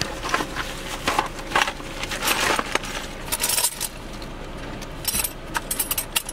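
Hands rummaging through a fabric bag: plastic rustling and crinkling with a scatter of small clinks and clicks at irregular intervals.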